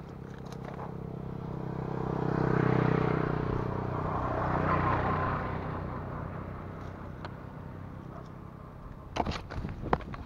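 A motor vehicle's engine passing by, growing louder over a few seconds and then fading away. Near the end, a few sharp clicks and rustles close by.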